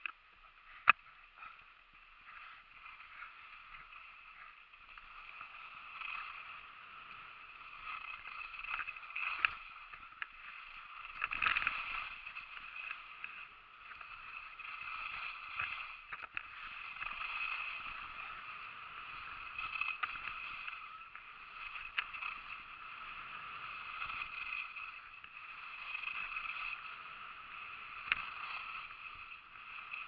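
Skis sliding down a groomed snow slope: a steady swishing hiss that swells and eases and grows louder a few seconds in as the skier picks up speed. Now and then there is a sharp click or knock.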